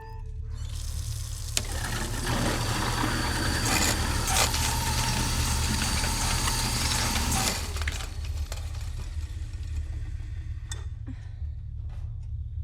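Kitchen garbage disposal switched on, its motor running with a loud grinding churn over a steady low hum. The grinding cuts back sharply about seven and a half seconds in, leaving a lower rumble with a few clicks.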